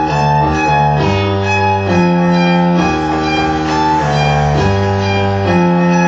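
Synthesizer music from a modular synth set: a line of held bass notes changing about once a second under layered sustained tones, without percussion.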